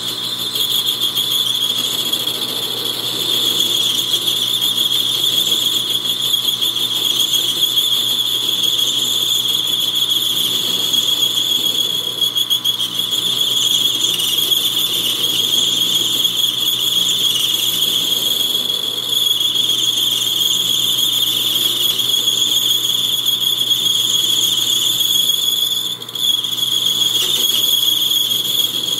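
Metal lathe cutting a small part, with a steady high-pitched squeal from the cutting tool. The sound drops briefly about 26 seconds in.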